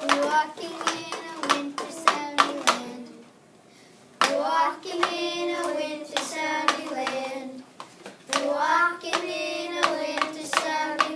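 A voice singing wordless tones, with sharp hand strikes throughout and a brief pause about three seconds in.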